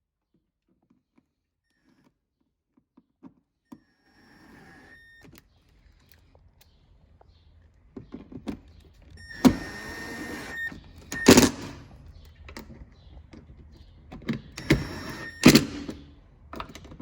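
Cordless power driver driving screws in several short runs, each about a second long, with faint handling noises between them.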